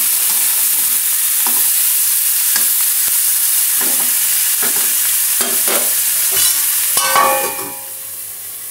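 Spiced potato, brinjal and pumpkin pieces sizzling in mustard oil in a black kadai while a spatula scrapes and stirs them every second or so. About seven seconds in, a steel lid clatters down onto the pan with a brief ring, and the sizzle drops to a muffled hiss under the cover.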